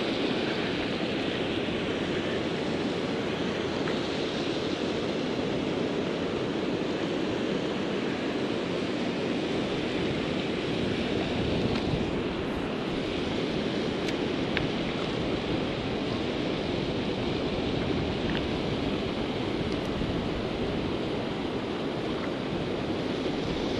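Steady rushing of turbulent river water churning below a dam spillway, an even wash of noise with no break.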